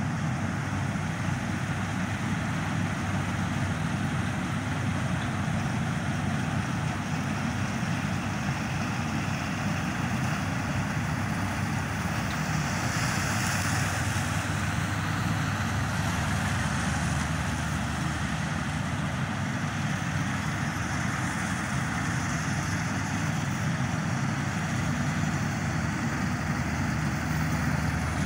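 Panesar Crop Tiger combine harvester fitted with a straw management system, running steadily with its engine and threshing machinery working as it cuts rice.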